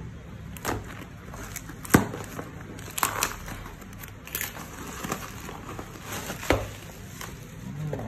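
A taped cardboard parcel being torn open by hand, with the bubble wrap inside crinkling: a string of sharp rips and crackles, the loudest about two seconds in.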